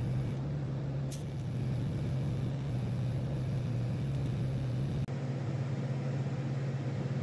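Welding arc on a steel tube cover, running with a steady buzz and hiss, with a brief click about a second in.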